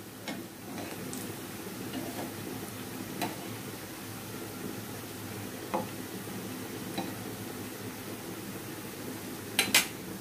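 Rui fish kababs sizzling steadily in hot oil in a frying pan, browned on both sides and ready to be lifted out, with light taps of a metal spatula moving them about. Two sharp metal clicks come close together near the end.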